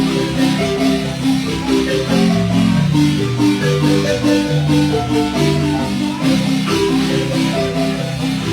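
A son being played, led by short struck notes that sound like mallet percussion, in a fast and steady rhythm over a low accompaniment.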